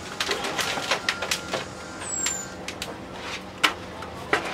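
A thin aluminium sheet strip is handled and bent by hand, giving irregular sharp metallic clicks and rattles. The loudest comes a little over three and a half seconds in, over a steady low background hum.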